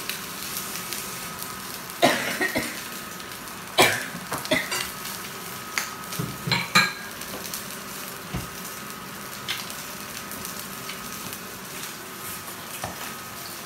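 Steady sizzle of eggs frying in a pan on an electric stove, with a handful of sharp clinks and knocks of pans and utensils scattered through it.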